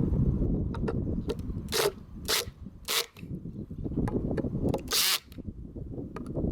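Power drill driving screws into the wooden mailbox mount, in several short bursts over a low rumble.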